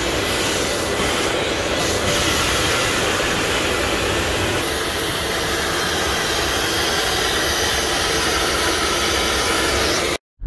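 Rainbow water-filter vacuum cleaner running steadily at full suction, its hose and long extension wand drawing air along a car's boot floor. The sound cuts off suddenly near the end.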